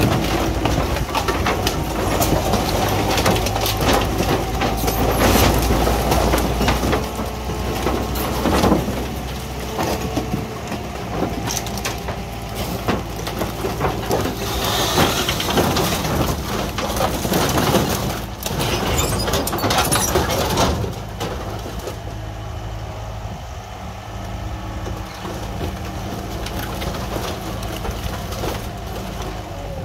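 Komatsu skid steer's diesel engine running while its grapple crushes and tears apart an old camper. For the first twenty seconds or so there is dense crunching, cracking of wood and scraping of sheet metal. After that the engine runs on with little crashing.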